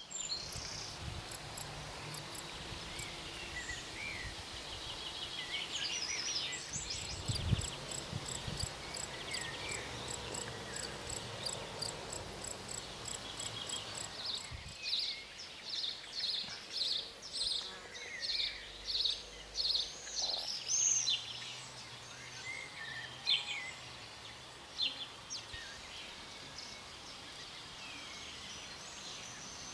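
Birds singing and calling over a steady low background noise, with a fast high trill in the first half and a run of loud repeated chirps, about two a second, through the middle.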